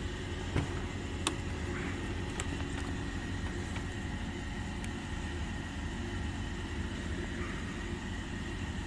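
Steady mechanical hum in the background, with a few sharp clicks from pliers twisting a steel wire clamp tight around a radiator's plastic tank, the loudest about half a second and just over a second in.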